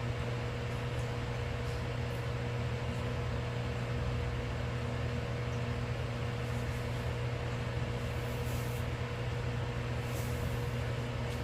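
Microwave oven running with a steady electrical hum while it heats food.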